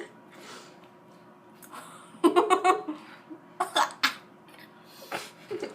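A person coughing and gagging on an oversized mouthful of pancake, in three short fits: about two seconds in, about four seconds in, and near the end.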